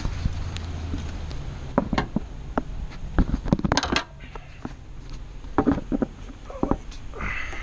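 Irregular knocks, taps and clicks, a dozen or so spread over several seconds, as of hand work around a car's engine bay, with a low hum in the first second or so.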